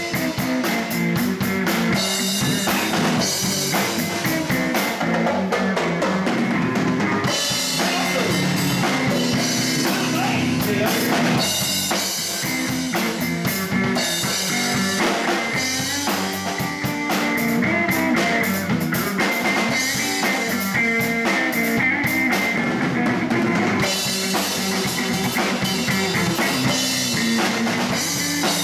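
Live blues band playing: a Ludwig drum kit with kick, snare and cymbals, electric bass and electric guitar, all at a steady loud level.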